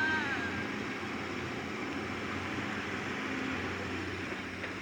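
Steady engine-driven machinery running with a continuous hum and noise. A brief high tone rises and falls right at the start.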